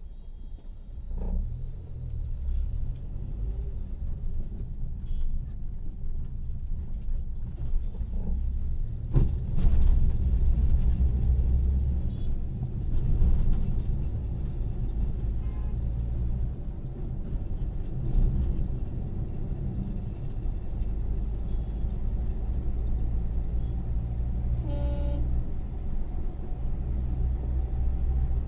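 Car road noise heard from inside the cabin: a low engine and tyre rumble that grows louder as the car pulls away from a stop and gathers speed, then holds steady at highway speed.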